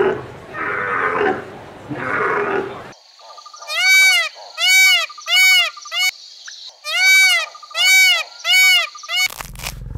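Sheep bleating several times, then an Indian peafowl (peacock) calling loudly in two runs of about four arched, wailing calls each, starting about three seconds in.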